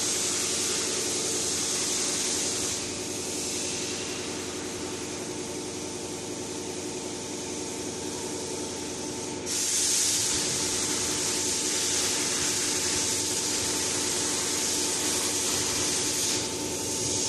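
Workshop machinery running: a steady high hiss over a constant electrical hum. The hiss eases about three seconds in, comes back louder about halfway through, and drops again near the end.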